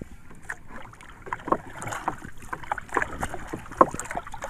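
A small paddled wooden boat on the water as a nylon gill net with floats is paid out over its side: irregular splashing and light knocks, the sharpest a little before the end.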